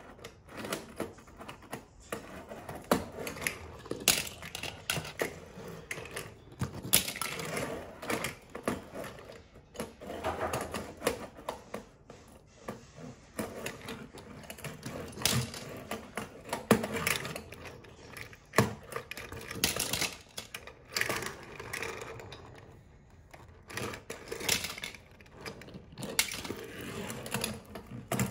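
Diecast toy cars clattering together on a wooden table: metal bodies and small wheels knock, click and roll against one another in a long run of rapid clacks that swells and eases off in waves.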